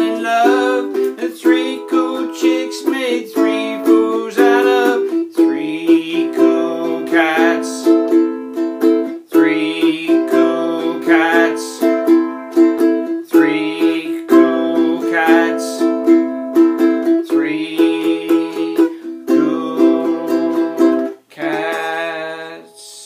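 Ukulele strummed in a steady rhythm. The playing breaks off briefly near the end, then a last chord fades out.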